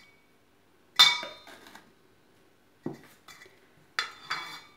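Stainless steel mixing bowl knocked four times, each clink ringing briefly; the loudest comes about a second in.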